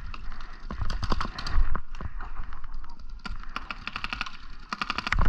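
Paintball markers firing: sharp pops in loose groups, then a fast string near the end that is the loudest part.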